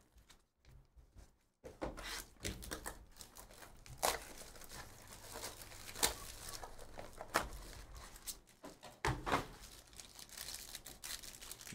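Plastic shrink wrap being torn and crinkled off a trading-card hobby box, with several sharp snaps and taps among the crinkling. It starts after about a second and a half of near quiet.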